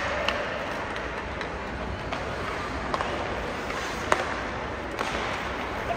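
Youth ice hockey game ambience: a steady hall rumble with occasional sharp clicks of sticks or the puck, about one a second.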